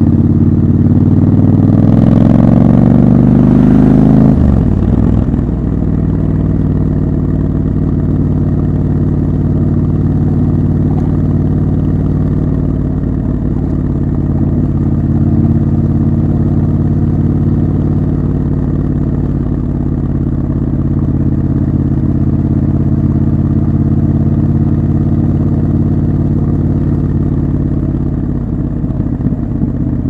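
Triumph Scrambler 1200 XC's 1200 cc parallel-twin engine under way: it rises in pitch for about four seconds, drops suddenly, then runs at steady revs for the rest of the ride.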